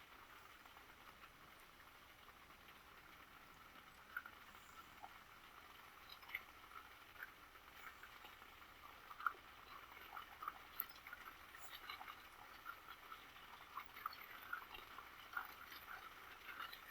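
Faint raindrops pattering as scattered separate ticks, few at first and coming more often as the rain builds up.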